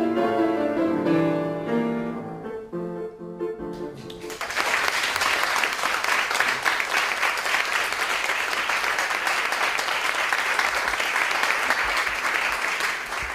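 Solo piano playing the closing notes of a Romantic classical piece, then audience applause breaking out about four seconds in and carrying on, fading near the end.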